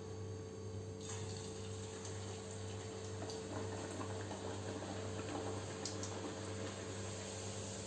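Puri frying in hot oil in a steel kadhai: a steady sizzle and bubbling that comes up about a second in and holds, over a low steady hum.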